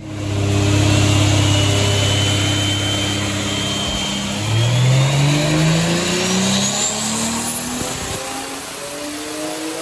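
Turbocharged Toyota 1JZ-GTE inline-six on a chassis dyno at 18 psi boost. It runs at a steady speed, then about four and a half seconds in it accelerates hard, the engine note climbing steeply through the revs. A high whine rises along with it.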